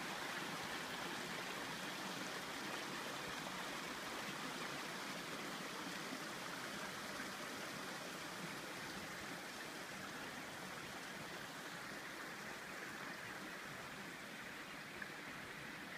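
Shallow mountain river running over boulders: a steady rush of flowing water that grows a little fainter toward the end.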